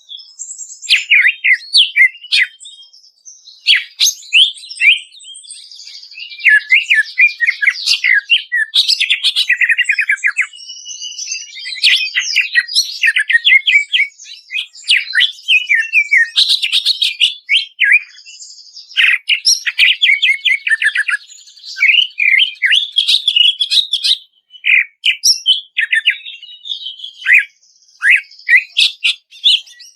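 Cucak ijo (green leafbird) singing a rapid, varied song of chirps, trills and sharp whistled notes, almost without pause.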